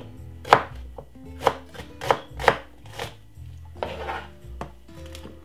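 Chef's knife chopping a small onion on a cutting board: a run of sharp, unevenly spaced knocks, about seven in all, with a short gap before the last one.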